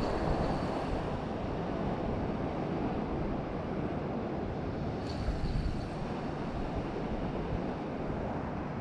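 Sea waves washing on the shore with wind buffeting the microphone, a steady rushing noise. A brief faint high whine sounds at the start and again about five seconds in.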